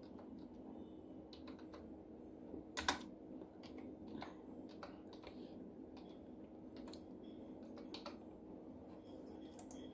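Faint keystrokes on a computer keyboard as a word is typed: a scattered run of soft key clicks, one louder clack about three seconds in, over a low steady hum.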